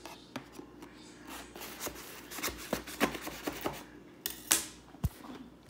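Handling noise from a cardboard keyboard box and its packaging: scattered clicks, taps and rustles, with a louder rustle about four and a half seconds in and a low thump just after.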